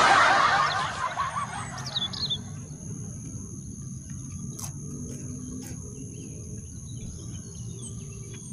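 A few short bird chirps over a steady low hum, with a faint high-pitched tone held throughout. A loud burst of noise at the very start fades away within about a second.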